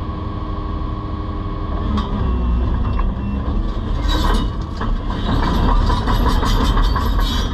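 Excavator at work: its engine and hydraulics run with a steady hum. A sharp click comes about two seconds in, then metallic clanking and rattling builds and gets louder toward the end.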